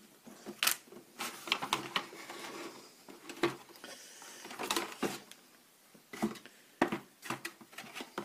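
Stiff printed cardboard pieces of a toy clock-tower backdrop being handled and slid against each other and the box: irregular rustles, scrapes and light knocks.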